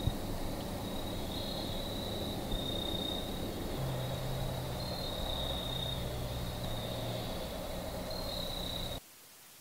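Night insects trilling steadily at a high pitch over a faint low hum; the sound cuts off suddenly near the end.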